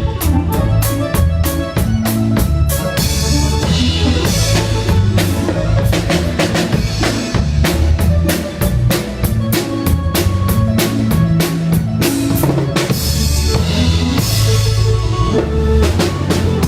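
A live band playing during a sound check: a drum kit beats a steady, busy rhythm, with bass-drum and snare hits loudest, over a moving bass line and some mid-range instrument notes.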